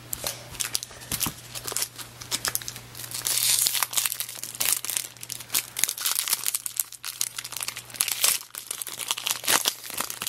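Foil wrapper of a trading card pack crinkling and tearing as it is opened by hand: a run of irregular sharp crackles, densest about three to four seconds in.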